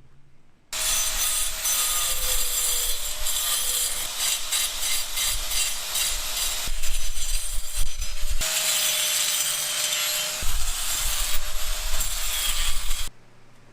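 A power tool running with a steady whine while grinding or sanding against a surface, giving a dense rasping noise. It starts abruptly just after the beginning and cuts off abruptly near the end.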